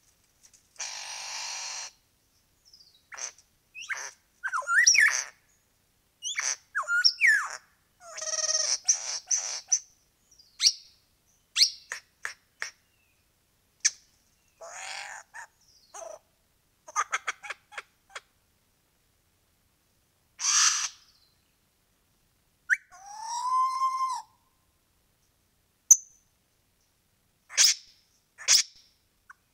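Albert's lyrebird singing: a varied string of calls separated by short gaps. It runs through harsh buzzy notes, rising whistles and quick runs of clicks, with a longer slurred whistle about three-quarters of the way through.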